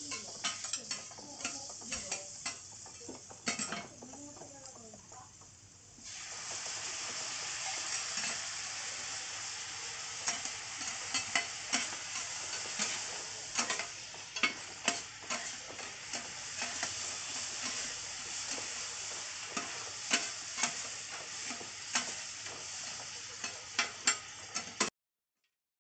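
Two metal spatulas clacking and scraping on a steel teppan griddle as pieces of pork offal are turned. About six seconds in, a loud steady sizzle starts as sauce hits the hot plate under the liver, with spatula clacks over it until the sound cuts off suddenly near the end.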